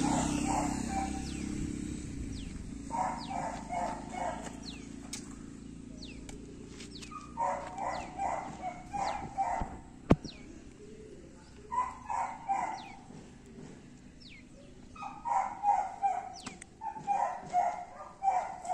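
Dogs barking in quick runs of short yaps, several bursts with pauses between, while small birds chirp. One sharp knock about ten seconds in.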